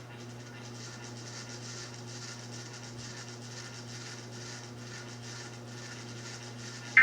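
Dead air on a broadcast feed: a steady low hum with faint hiss and no distinct events.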